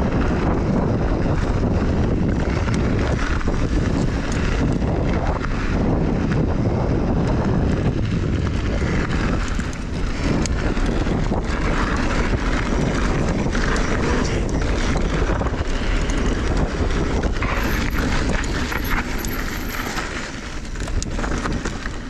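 Mountain bike rolling fast down a dirt trail: wind buffeting the microphone and tyre noise over the ground, with frequent small clicks and rattles from the bike on the rough surface.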